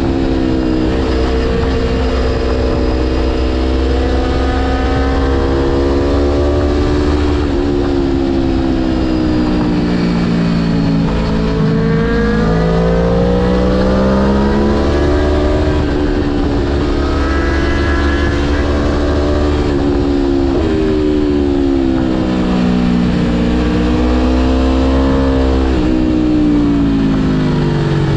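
Aprilia Tuono V4 1100 Factory's V4 engine pulling through the gears on a twisty road, its pitch climbing and falling several times as the rider rolls on and off the throttle and shifts, over a steady low wind rumble.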